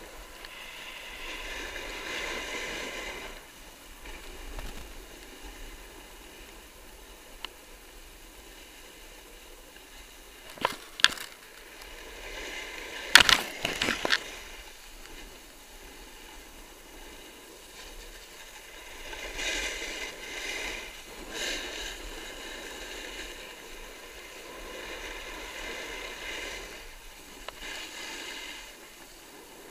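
Snowboard sliding and scraping over snow, the hiss swelling and fading with each turn, with a few sharp knocks near the middle that are the loudest sounds.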